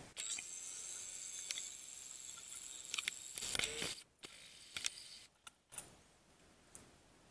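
A camcorder's zoom motor whirring steadily with a thin high whine as the lens zooms out, stopping after about three and a half seconds, followed by a few light clicks.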